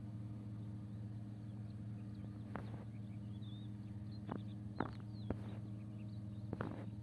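Steady low hum, with a few sharp knocks or clicks and faint bird chirps from a little way in.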